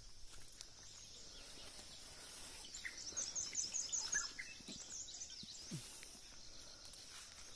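Small birds calling faintly, with a quick run of high chirps about three seconds in, over a steady high-pitched drone of insects.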